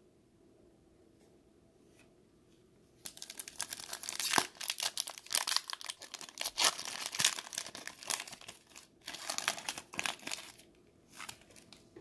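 A foil wrapper of a Mosaic football card pack being torn open and crinkled: quiet at first, then a busy stretch of crackling starting about three seconds in that eases off into a few rustles near the end.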